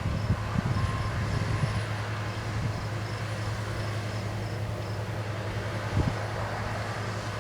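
Heavy farm machinery engine running steadily at constant speed, a low even drone, with a brief thump about six seconds in.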